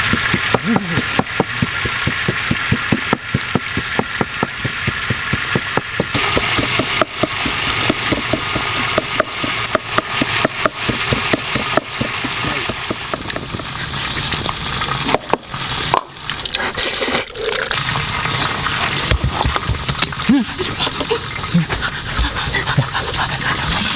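Wood fire crackling and popping under a lidded clay cooking pot, with the pot boiling over and bubbling.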